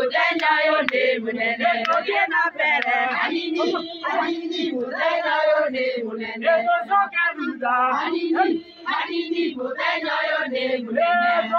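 A group of mostly women's voices singing a chant-like song together, unaccompanied.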